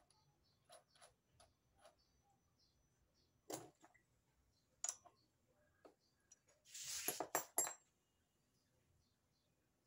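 Scattered light metallic clinks and clicks of tools being handled at a stopped metal lathe, with a short cluster of sharper clinks about seven seconds in.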